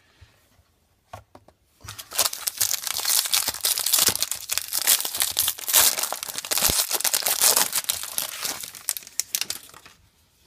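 Plastic wrapping on a trading-card box crinkling and tearing as the box is unwrapped. A dense crackle starts about two seconds in and stops shortly before the end.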